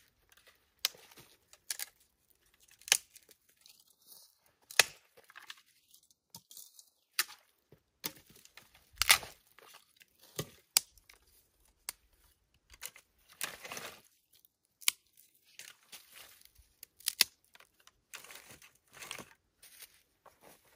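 Dry sticks and twigs cracking and clattering as they are handled and snapped, with dry leaf litter crunching and rustling between them; the cracks come irregularly, about one every second or so, and a few stand out loud.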